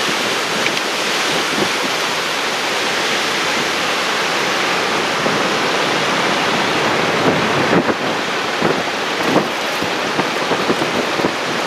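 Steady, loud roar of tornado-driven wind and rain from a large wedge tornado close by, with wind buffeting the microphone. Scattered sharp taps come through in the second half.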